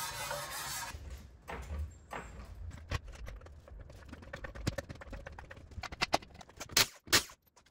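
Music ends about a second in, then scattered knocks and clicks of hands handling parts and tools, with a burst of sharper clicks near the end.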